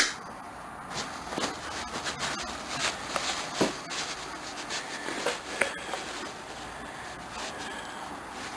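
Rusty pliers being handled and worked after a WD-40 soak: a sharp click at the start, then irregular small metal clicks and scrapes that thin out after about six seconds.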